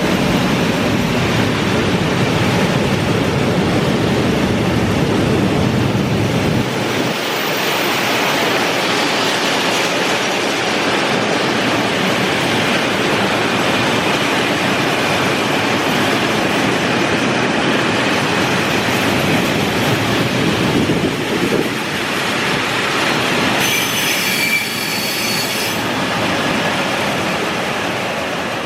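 Trenitalia train running on the rails, with a continuous loud rumble and wheel noise. A brief high-pitched wheel squeal comes about 24 seconds in.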